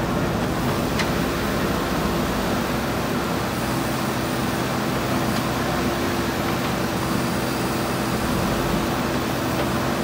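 Diesel engine of a JCB 3DX backhoe loader running steadily at close range while the backhoe works, with a steady hum over the engine noise.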